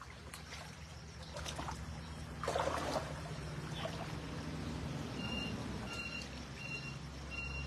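Shallow stream water splashing and sloshing around a plastic mesh basket dragged through it, loudest about two and a half seconds in.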